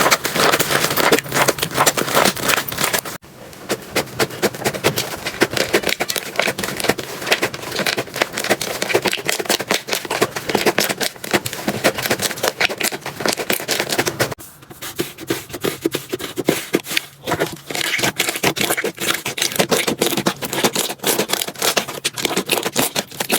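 Slime being squeezed and pressed by hand close to the microphone, giving dense, rapid crackling and popping clicks. The sound breaks off and changes character abruptly about three seconds in and again around fourteen seconds in.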